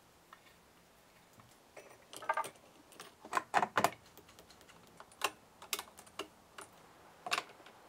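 Irregular light clicks and taps of small metal hand tools and screws against a chainsaw's plastic and metal housing as it is assembled, beginning about two seconds in.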